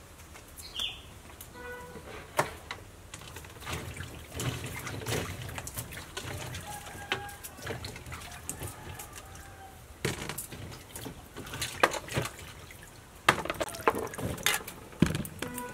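Cucumbers being washed by hand in a bowl of water: splashing and dripping, with irregular knocks and clatters as they hit the bowl.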